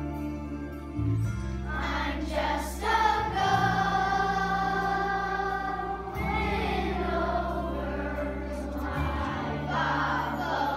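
A child singing a solo over an instrumental accompaniment, holding one long note a few seconds in while steady bass notes change underneath.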